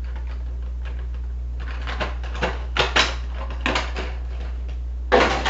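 Plastic packaging crackling and clicking in several short bursts as an action figure is worked free of its tray, the loudest burst near the end. A steady low hum runs underneath.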